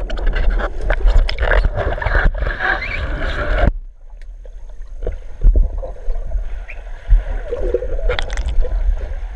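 Muffled underwater sound of pool water around a submerged action-camera housing: churning water and gurgling with many small knocks. About four seconds in it drops suddenly to a quieter low rumble with an occasional knock.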